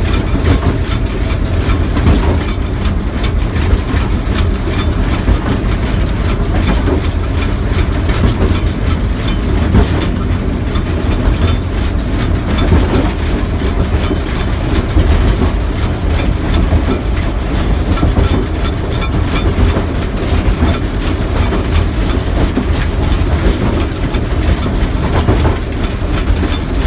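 Steam locomotive under way, heard from its footplate: a loud, steady rumble with a dense clatter of wheels on the rails.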